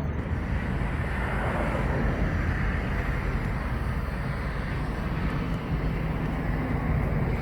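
Motorcycle engine, the Yamaha MT-03's parallel twin, running steadily, with wind noise on the microphone.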